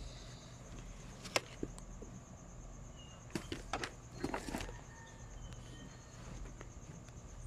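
A few sharp clicks and knocks, one alone and then a quick cluster about halfway through, over a steady low hum and a thin high steady tone.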